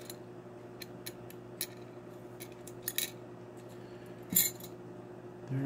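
Small rectangular glass nail stones clicking and sliding against a metal dish as it is tilted: scattered light ticks, the loudest a short clatter about four seconds in, over a faint steady hum.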